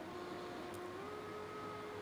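Faint background music: soft held notes over a light hiss, stepping up to a higher note about a second in.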